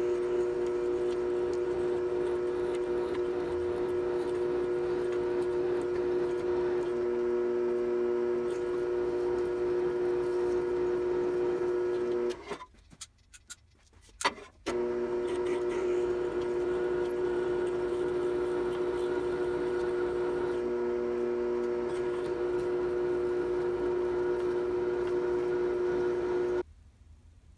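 Drill press running with a steady hum while a twist drill bores holes through two clamped metal pieces for roll pins. The sound drops out for about two seconds midway, with one sharp click, then resumes and cuts off shortly before the end.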